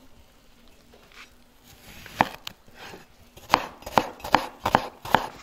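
Meat cleaver chopping through an onion onto a wooden cutting board: a single chop about two seconds in, then five quick chops in a row.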